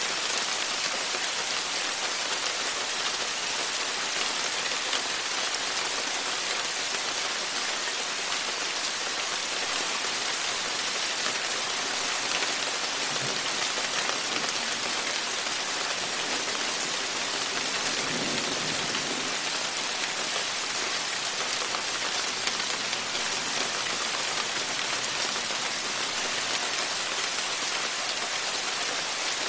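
Steady rain pouring down, an even hiss of drops striking wet surfaces with no let-up. A faint low rumble comes through just past the middle.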